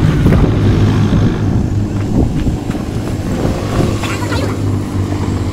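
Engine of a Nissan 4x4 running under load as it climbs a steep, stony dirt track, with a steady low hum and a few clicks of stones.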